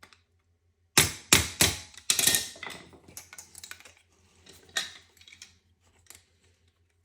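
Light hammer knocks on a new fuel injector to seat it in its fuel rail: three sharp knocks in quick succession about a second in, a brief metallic rattle, then scattered small clicks of tool and parts handling with one more tap near five seconds.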